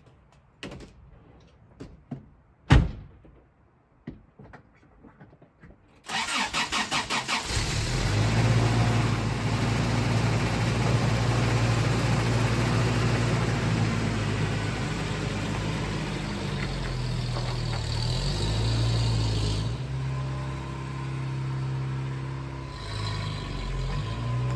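A 1991 Toyota 4x4 pickup's engine cold-started: the starter cranks for about a second and a half, the engine catches and then runs steadily to warm up, its note shifting slightly a couple of times. Before the start there are a few small clicks and one sharp knock.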